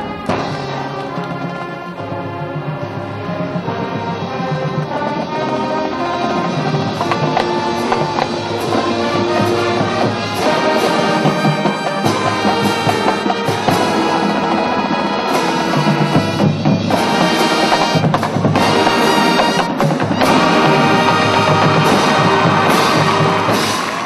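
High school marching band playing: a full brass section over percussion, swelling louder through the second half of the passage.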